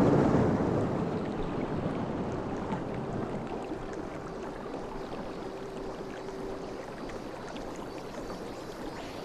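Ocean surf: a wave washing in and slowly drawing back, the hiss of the water fading over several seconds. A faint held flute note lingers under it and dies away.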